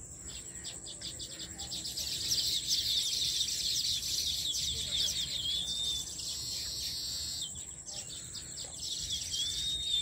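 A colony of baya weavers chattering: many rapid, overlapping chirps and trills that grow louder about two seconds in, with a clear upslurred whistle twice, near the middle and at the end, over a steady high-pitched drone.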